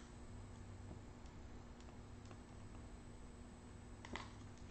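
Faint room tone with a few soft clicks from a long-reach lighter held to a candle wick, one click a little stronger about four seconds in.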